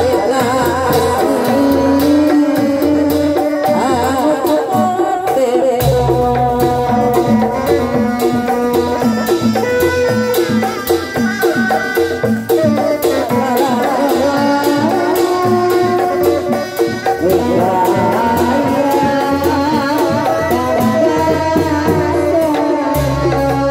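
Live Sundanese street-procession music: hand drums keep a dense rhythm under a wavering melody line. The deep bass part drops out for a couple of seconds near the start, then comes back.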